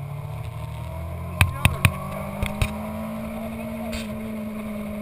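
Motorcycle engine idling steadily, its idle rising a little about two seconds in. A cluster of five sharp knocks comes between one and a half and two and a half seconds in; these are the loudest sounds.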